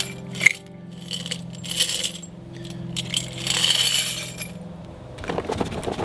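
Spent brass bullet casings clinking and jingling as they are tipped from a tin can into a clay-graphite crucible, in several rushes over a steady low hum. About five seconds in, this gives way to a denser rattle as charcoal lumps are dumped into the furnace.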